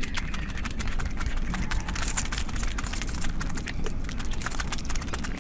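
Close-miked eating sounds: chewing a mouthful of rice and dal eaten by hand, a rapid run of small wet clicks and smacks.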